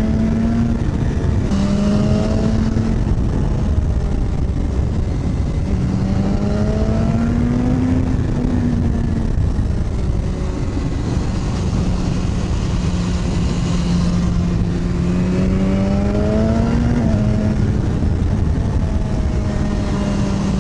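Sportbike engine pulling at road speed, its pitch rising and falling as the throttle opens and eases off a few times, over heavy wind noise on the helmet microphone.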